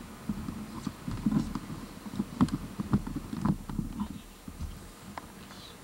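Irregular light clicks and knocks of plastic game pieces being turned and set on a game board, thickest in the middle and dying away near the end.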